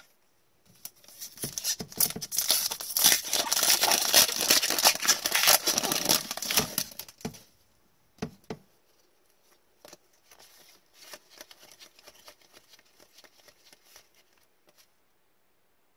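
A trading card pack's wrapper being torn open and crinkled for several seconds. After that come the fainter slides and light clicks of the cards inside being thumbed through one by one.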